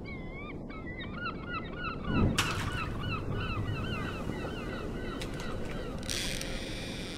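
Gulls calling again and again, several short cries a second, over a steady low rushing noise. A loud thud comes about two seconds in.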